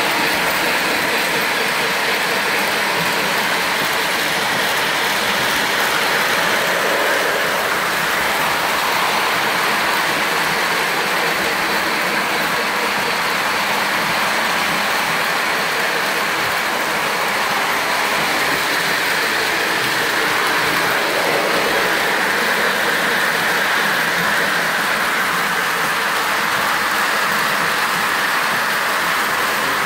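Several Lionel O-gauge electric toy trains running laps at once: a steady rattle and rumble of wheels and motors on plastic-roadbed track laid on a wooden floor.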